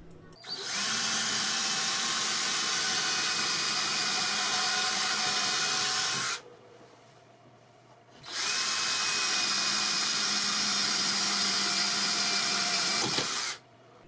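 Cordless drill running steadily as a larger bit bores into old, very hard wooden wall studs. It runs in two long stretches with a short pause between them.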